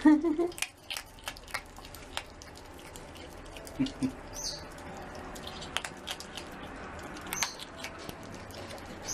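An otter being petted at close range: scattered light clicks and pattering, with two short high squeaks, one about four and a half seconds in and one near seven and a half seconds.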